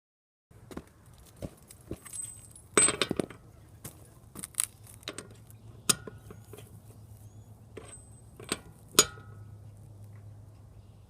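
Metal tools and parts clinking and knocking against each other, scattered irregular strikes, a few ringing briefly, the loudest about three seconds in and again near nine seconds, over a faint steady low hum.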